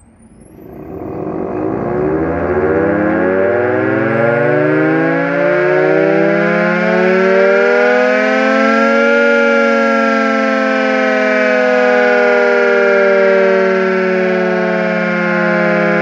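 Restored dual-rotor electric air raid siren spinning up from rest on a quick test run to 25 Hz. Its wail sounds several tones at once, rising in pitch for about nine seconds, then dipping slightly and holding steady.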